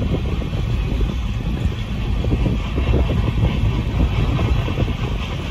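Union Pacific empty coal train passing: a steady low rumble with the quick, irregular clatter of wheels on the rails, heard from inside a car.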